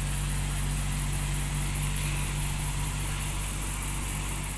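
Small helicopter's engine running steadily on the ground: a constant low hum with a faint high whine.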